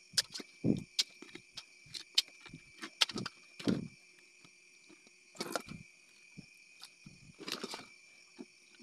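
Crab and shellfish catch clattering and scraping in an aluminium basin as it is tipped in and handled: irregular clicks and knocks with a few duller thuds. Night insects keep up a steady high chirring behind.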